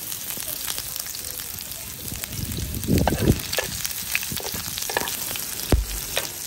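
Sliced red onions sizzling in oil in a nonstick frying pan, stirred with a spatula that clicks and scrapes against the pan. A louder stretch of stirring comes about halfway through, and there is a sharp knock near the end.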